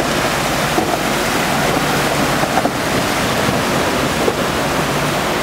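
Steady rush and splash of floodwater as a minivan drives through it, pushing a bow wave along the flooded street.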